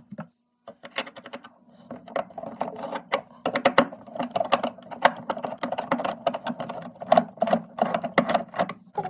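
Fast, irregular clicking and rattling of a refrigerator's condenser fan motor assembly as it is worked on, over a steady low hum. The clatter is densest about three and a half seconds in and again around seven seconds.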